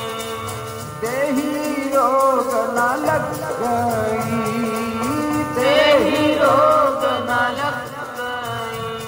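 Devotional music: a solo singing voice in long, ornamented, wavering phrases over a steady held drone. The voice comes in about a second in.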